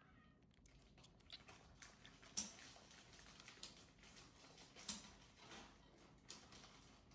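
Faint wet smacking and clicking of a baby squirrel suckling milk from a syringe tip, with a couple of sharper clicks about two and a half and five seconds in.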